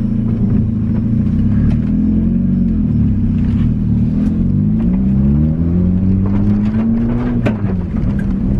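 Car engine revving under way: its pitch dips, then climbs steadily for about three seconds before dropping suddenly, as in a gear change or lifting off the throttle. Its running is called purring, and a few sharp clicks and knocks come through it.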